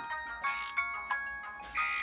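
A built-in ringtone of a Samsung Anycall SCH-W200 phone playing: a synthesized melody of bright, bell-like notes, about three a second, with a louder held note coming in near the end.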